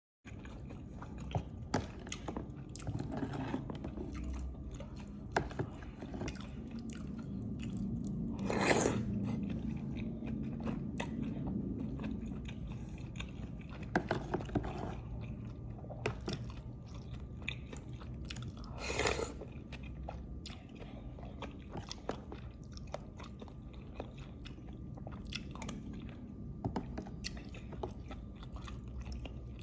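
A person chewing and biting a mouthful of lontong with green chili, wet mouth sounds with many small crackles and clicks, close to the microphone. Two louder, longer crunchy sounds come about nine and nineteen seconds in.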